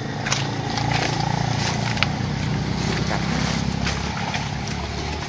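A small engine running steadily, with light clicks and rustling from handling a fishing net and a mesh fish basket.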